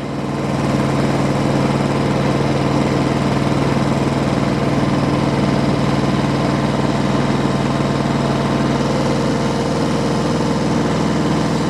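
Diesel tractor engine running steadily, driving a rear-mounted PTO snowblower, with a constant low hum under the noise of the blower.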